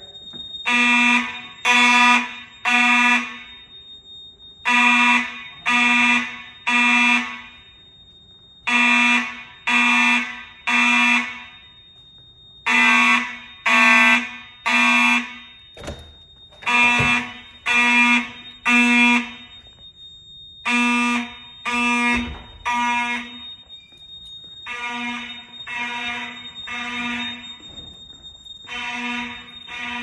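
FCI mechanical fire alarm horns buzzing in the temporal-3 evacuation code: three blasts, a pause, repeating about every four seconds, over a steady high tone. A door thuds a little past halfway, and the horns sound fainter in the last few seconds.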